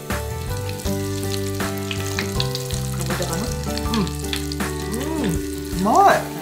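Breaded kushikatsu skewers deep-frying in a pot of hot oil: a steady crackling sizzle with fine pops. Steady background tones run underneath, with a few rising-and-falling tones, the loudest about six seconds in.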